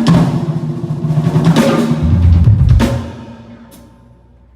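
Drum kit played during a rock band's sound check: snare, bass drum and cymbal hits together with the band, stopping about three seconds in and ringing away.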